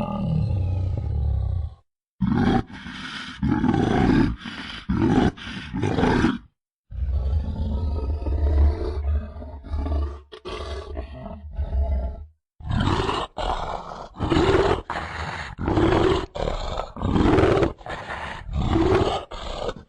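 Cartoon monster roars and snarls of the Man-Spider creature, a run of separate clips with short silent gaps between them. Some roars carry a deep rumble underneath, and the last stretch is a string of rapid snarls.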